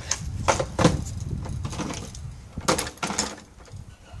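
Pet Loader folding dog steps being collapsed by hand: a series of clacks and knocks from the hinged metal frame and steps. There is a cluster in the first second and two more strikes near the three-second mark.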